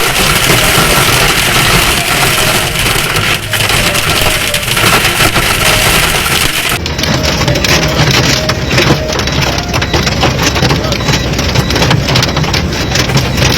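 Heavy storm rain and hail clattering on hard surfaces: a loud, dense rush of many small impacts. The sound changes abruptly about seven seconds in, where one recording gives way to another.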